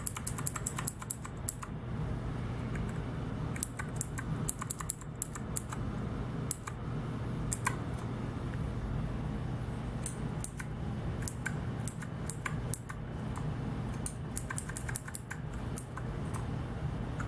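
Clicky clone Cherry MX Blue mechanical keyboard switches being pressed in short runs of quick keystrokes, with pauses between the runs, over a low steady hum.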